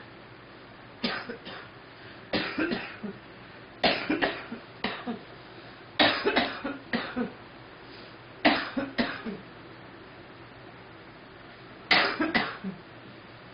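A girl coughing in six short fits of two to five coughs each, a fit every couple of seconds with a longer pause before the last.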